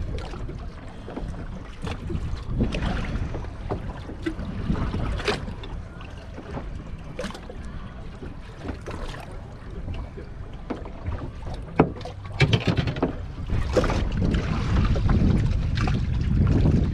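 Wind buffeting the microphone on an open boat deck, over water moving around a drifting fishing boat. Scattered clicks and knocks from handling on deck, with one sharp knock about two-thirds of the way through and busier rustling and knocking near the end.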